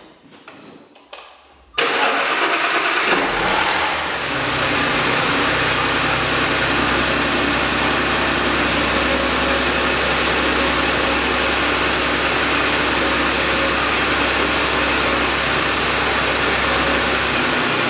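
A 2010 Audi A6's supercharged V6 is started about two seconds in, after a few faint clicks. It flares briefly, then settles into a steady idle. The owner diagnoses the engine as having rod knock and a timing issue.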